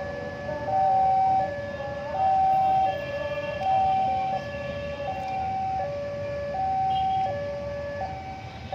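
Two-tone hi-lo warning alarm, switching evenly between a higher and a lower pitch about every three-quarters of a second with no sweep between them. Low traffic or engine rumble runs underneath.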